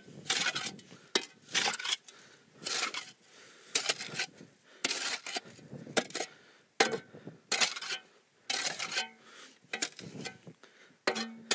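Shovel scraping dirt out of a Komatsu PC35 mini excavator's track: repeated short scraping strokes of the blade against the undercarriage, about one a second.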